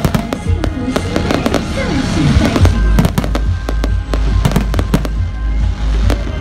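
Fireworks going off in quick irregular succession, a string of sharp cracks and bangs over a deep rumbling boom, with music playing underneath.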